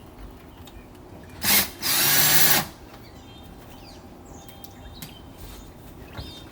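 Power drill run in two short bursts: a brief blip about a second and a half in, then a steady spin of about a second.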